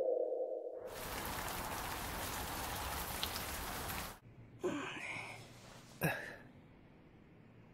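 Rain sound effect: an even hiss of heavy rain for about three seconds that cuts off suddenly, after a low steady tone fades out at the start. Then two short vocal sounds follow, about a second apart.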